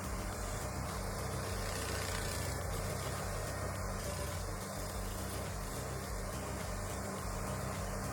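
A stump grinder's engine running steadily with a low, even hum.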